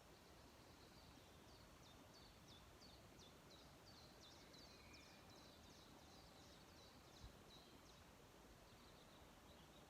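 Faint songbird song: a long run of quick, high, downward-slurred notes lasting about seven seconds, over a steady background hiss. A single soft tap near the end.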